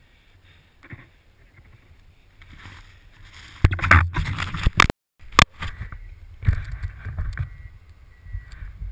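Skis swishing and ploughing through deep powder snow, with wind buffeting the action camera's microphone; the rushing turns loud and gusty about four seconds in, and the sound cuts out for a split second near five seconds.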